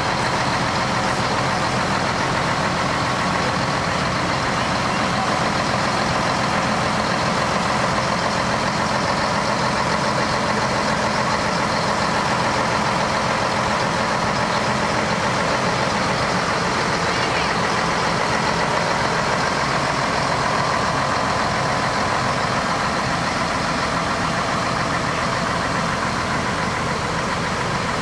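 Antique fire engine running steadily, its engine driving the fire pump, a constant unchanging mechanical noise.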